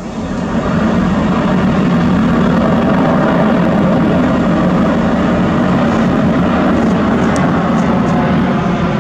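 An aircraft coming in to land passing close by: a loud, steady engine rumble and rush that swells in within the first second and then holds.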